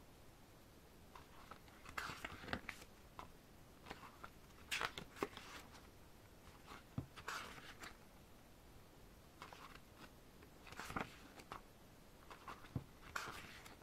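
Pages of a K-pop album photobook being turned by hand: faint, scattered paper rustles and flicks, about half a dozen over the stretch, some with a soft tap.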